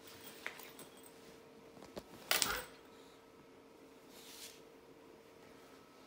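Rustling and light knocks of a fabric shopping bag being flapped and handled by a baby, with a louder crackling rustle a little over two seconds in and a softer rustle near the end.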